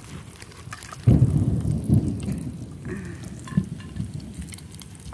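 A sudden low rumble of buffeting on the microphone about a second in, fading away over the next few seconds, with a few light clicks over it.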